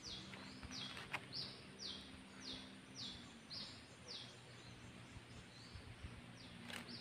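Faint, evenly repeated chirps from an unseen small animal, about one and a half a second, each a short raspy note falling in pitch, over a faint steady low hum.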